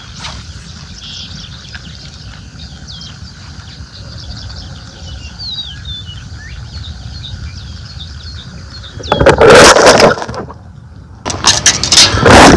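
Small birds chirping over a low steady rumble, then loud bursts of rushing noise about nine seconds in and again near the end.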